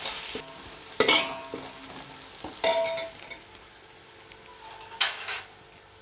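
Sliced onions sizzling as they fry in hot oil in a pot, stirred toward golden brown. A spoon knocks against the pot three times, about 1, 2.5 and 5 seconds in, each knock ringing briefly, the last the loudest.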